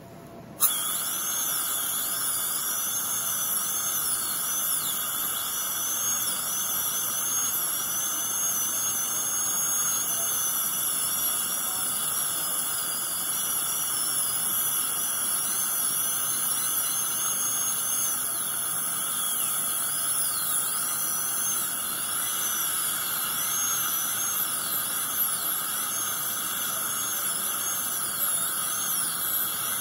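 High-speed dental handpiece drilling out an old composite filling in a molar, starting abruptly about half a second in and running on with a high whine whose pitch wavers and dips.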